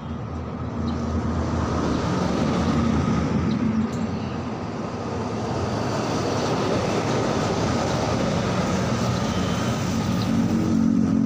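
Steady engine noise, a constant rumble with a low hum, that grows louder about a second in and holds.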